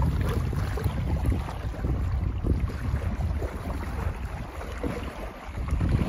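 Wind buffeting the microphone in gusts, over small waves lapping and splashing close by on choppy lake water. The wind eases briefly about five seconds in, then picks up again.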